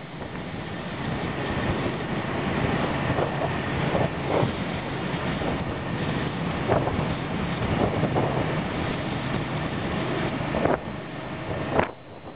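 Vehicle driving along a road: steady engine and road noise with wind buffeting the microphone in occasional gusts, easing off near the end.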